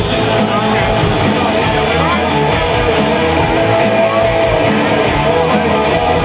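A rock band playing live: electric guitar over drums keeping a steady beat of about four strokes a second.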